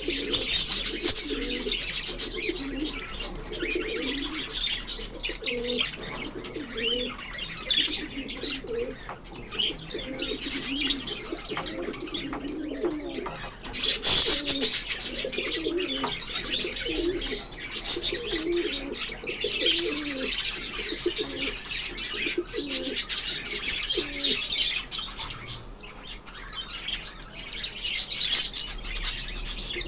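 Pigeons cooing over and over, low curved calls that thin out in the last few seconds, over constant busy high chirping from many small birds.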